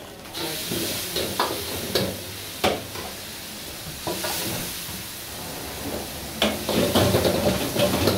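Hot oil sizzling in a wok over a high gas flame, with a metal ladle knocking and scraping against the wok several times. The sizzle swells louder near the end as the wok flares up.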